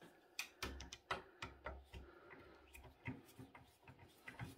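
Faint, irregular clicks and light metallic taps of a screwdriver working at the Torx screws of a PC's sheet-metal drive cage while it is handled.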